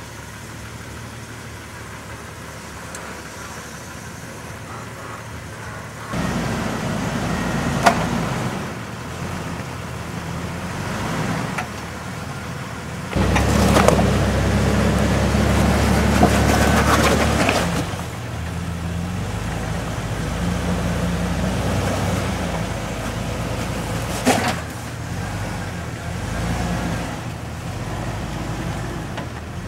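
Jeep engines running at low speed as the off-road Jeeps crawl over boulders, getting louder about six seconds in and again about thirteen seconds in. A few short, sharp knocks stand out over the engine sound.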